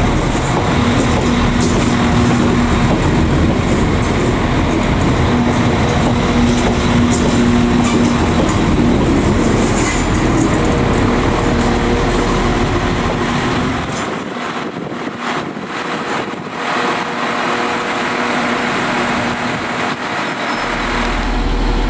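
Northern Ireland Railways Class 4000 diesel multiple unit moving along the platform: a steady diesel engine drone over the rumble of wheels on the rails. About fourteen seconds in, the deep rumble falls away and a lighter running noise carries on.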